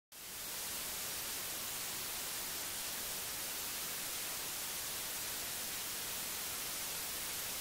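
Steady static hiss, an even white noise without any tone or rhythm, fading in at the start.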